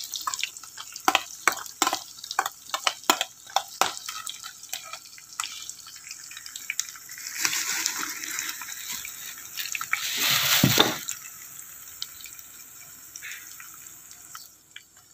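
Sliced shallots and garlic frying in oil in a stainless-steel electric pot: a steady sizzle, with a metal spoon clinking and scraping against the pot in the first few seconds. A louder rushing burst comes about ten seconds in, then the sizzle goes on more quietly.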